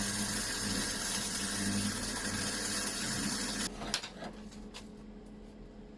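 Gasless flux-core MIG welding: the arc of a small 130-amp hobby welder crackles and hisses steadily over a low hum while a bead is run, then cuts off suddenly a little over halfway through. A few light clicks follow.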